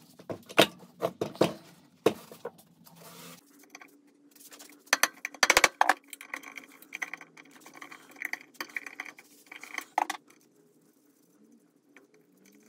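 Metal parts and hand tools clinking and knocking against each other in scattered taps, with a quick run of clicks about five seconds in, then falling quiet.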